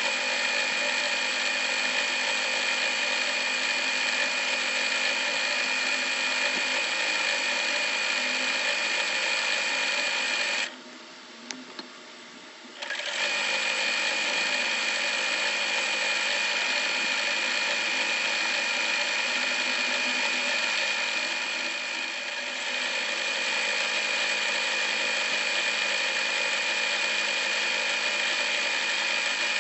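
Usha Dream Maker 120 computerized sewing machine running, stitching embroidery patterns with a steady high whine. It stops for about two seconds near the middle, then starts stitching again.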